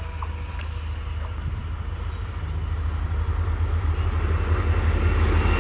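EMD WDP4B diesel-electric locomotive running with a steady low rumble, growing steadily louder as it approaches.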